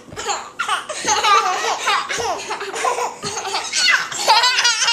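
A baby laughing hard, a string of short laughs that builds to a quick run of high-pitched laughs near the end.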